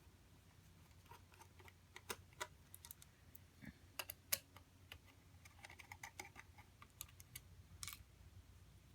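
Faint, irregular small clicks and taps of hands and a tool on the metal heatsinks and plastic parts of an opened Xbox 360 while the heatsinks are being worked loose.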